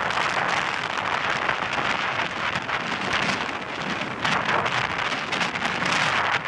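Strong wind buffeting the microphone over the rushing hiss of heavy surf: a dense, gusty noise with no pauses.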